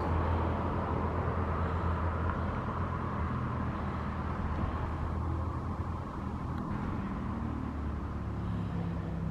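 Steady low rumble of road traffic on a bridge.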